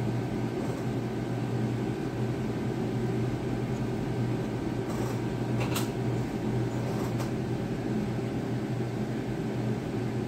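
A steady low hum, with a few faint clicks between about five and seven seconds in.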